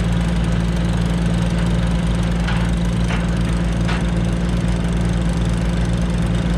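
Loader engine idling steadily, a low, even drone.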